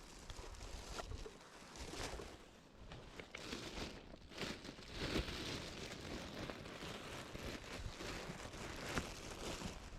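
Irregular rustling and crinkling with a few sharp clicks, as of things being handled.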